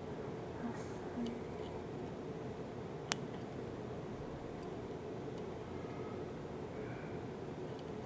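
Lishi 2-in-1 pick and decoder working the pins of a Schlage pin-tumbler lock: a few faint metallic ticks and one sharp click about three seconds in, over a steady low background hum.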